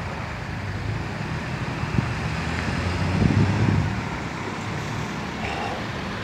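Street traffic with a steady engine hum, swelling as a car passes close about three seconds in.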